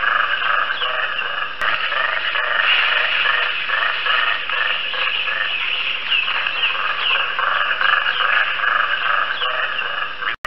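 Colobus monkey calling: a continuous run of rattling pulsed calls, about three a second, with higher chirps over them. The sound cuts out briefly near the end.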